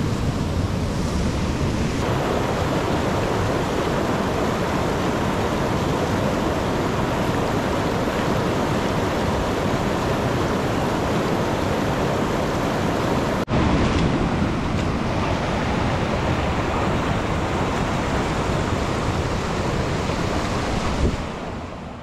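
Large waterfall in heavy flow, swollen after days of rain: a steady, loud rush of falling water, broken once by a brief dropout about two-thirds of the way through.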